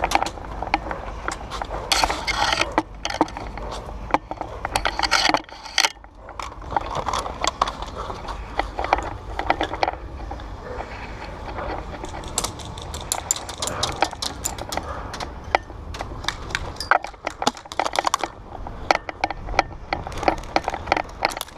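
Scuffing, scraping and crunching of a player moving in tactical gear over dry dirt, with many sharp clicks and knocks.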